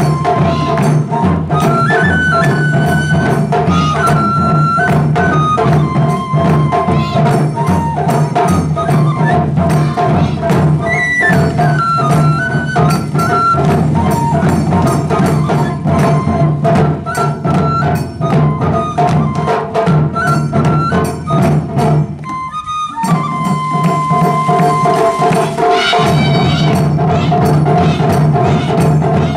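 Japanese taiko drum ensemble playing a fast, driving rhythm, with a bamboo flute carrying a melody above the drums. The music drops out briefly about three-quarters of the way through, then the drums and flute come back in together.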